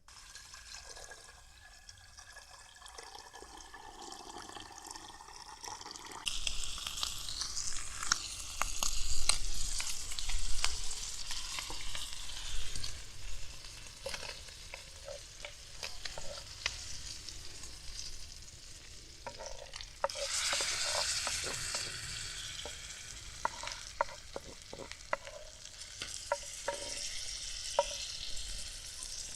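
Shrimp frying in butter, sizzling, with a utensil clicking against the pan as it is stirred. The sizzle is quiet at first, jumps up suddenly about six seconds in, and flares again about twenty seconds in.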